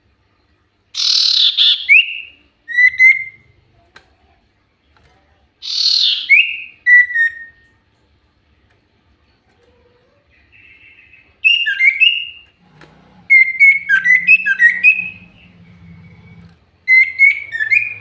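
Common iora (cipoh) calling: two loud calls about five seconds apart, each a harsh down-sweeping note followed by a short whistle. From about two-thirds in come quick runs of twittering whistled notes.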